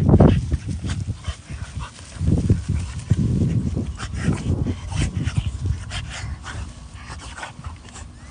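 French bulldog rolling on its back in grass: the dog's breathing in uneven bursts and the crackly rustle of grass under it.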